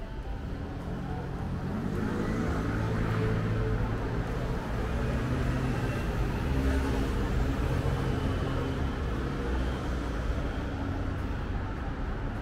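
Street traffic passing close by: cars and other vehicles running along the road with tyre noise. About two seconds in, one engine speeds up, its pitch rising, and the traffic gets louder.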